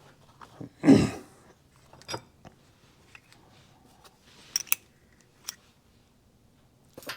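Small engine parts being handled on a workbench: a few light, sharp metal clicks and taps, scattered and irregular. About a second in comes a louder short breathy rush.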